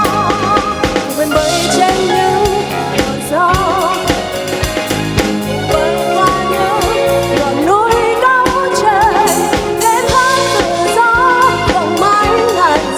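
Pop song played live by a band with a drum kit, a high melodic line gliding and wavering over a steady bass and chords.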